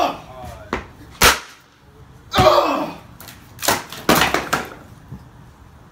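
Skateboard clacking on concrete: the deck popped and slapping down with sharp knocks as a flip trick is tried, one about a second in and several close together past the middle.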